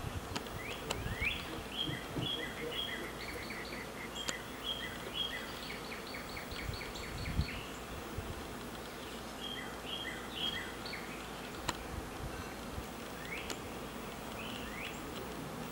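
Steady buzzing of a honey bee swarm flying around a hollow oak tree, with a bird calling over it in runs of short, quick chirps, and a low bump about seven seconds in.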